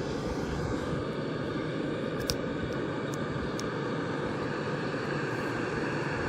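A steady rushing drone, like a motor or fan running, with a few light clicks about halfway through.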